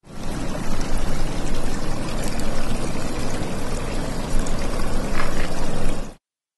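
Rushing, pouring water: a dense, uneven wash that swells in at the start and cuts off suddenly near the end.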